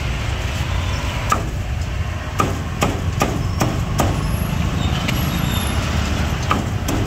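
Cleaver chopping roast pork: a series of sharp, irregularly spaced chops, quickest around the middle, over a steady low rumble.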